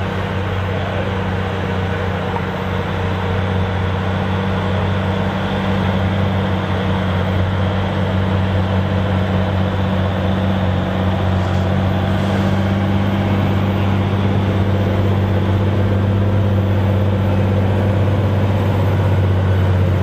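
Fendt 828 tractor's diesel engine running steadily under load while pulling a plough, with a deep even hum that grows gradually louder.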